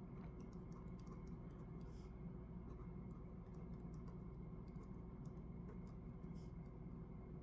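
Faint pen writing on paper: irregular light clicks and short scratches of the pen, over a steady low hum.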